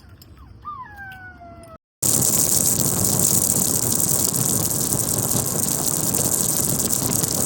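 A dog whines briefly with a few falling whimpers. Then, after a cut, a loud steady rushing noise takes over and runs on for several seconds.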